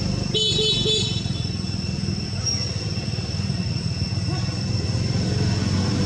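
Steady low rumble of a running engine, with a thin steady insect drone above it and a brief high squeak about half a second in.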